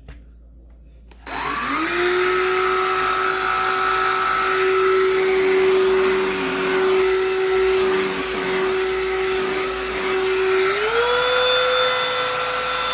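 Cordless handheld vacuum switched on about a second in, its motor whine rising quickly to a steady pitch. About 11 s in the whine steps up to a higher pitch, and the vacuum cuts off at the end.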